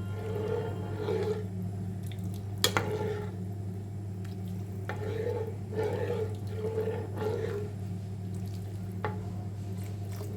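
A spoon stirring chicken noodle soup in a pot as it thickens with cornflour, with a sharp clink of the spoon against the pot about two and a half seconds in and a lighter tap near the end, over a steady low hum.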